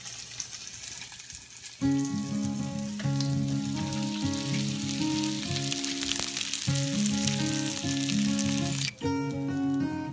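Panko-breaded fish fillets frying in hot oil in a small nonstick pan, a steady sizzle. Background music comes in about two seconds in and plays over the sizzle.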